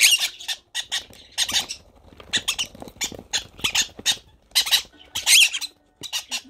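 Green-cheeked conure chicks giving short, repeated food-begging calls while being fed beak-to-beak by an adult conure.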